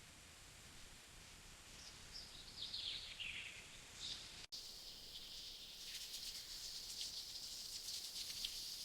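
Faint forest ambience. A bird calls with a short run of descending notes about two to three seconds in. After a brief dropout about halfway, a steady high buzz with crackles takes over.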